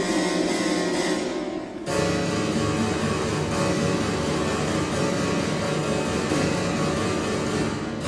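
Recorder and baroque bassoon playing contemporary chamber music. Held notes break off after about two seconds, and after a short dip a dense, low texture of rapid clicking, plucked-sounding notes follows.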